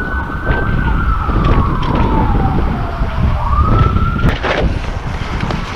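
Police car siren wailing: the tone holds high, slides slowly down over about three seconds, then sweeps quickly back up, over a steady low rumble. A single sharp clack sounds a little after four seconds in.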